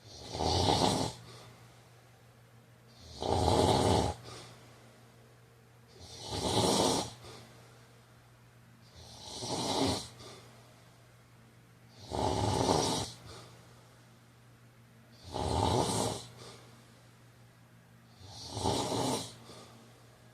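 A man snoring steadily: seven snores, one about every three seconds, each lasting about a second.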